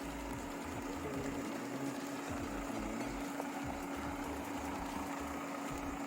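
Fiat Punto Evo's engine running steadily at low speed, a constant hum over an uneven low rumble.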